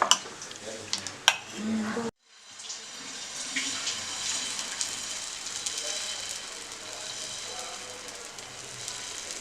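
A couple of sharp utensil clinks, then, after a break, a steady sizzling hiss of dosa batter poured and spread on a hot griddle (tawa).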